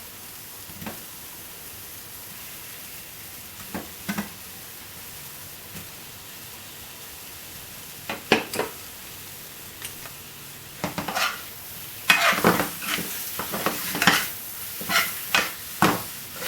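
Chicken pieces sizzling in a hot pan of spices, with a spoon stirring and knocking against the pan; the stirring clatter becomes busier and louder in the last few seconds.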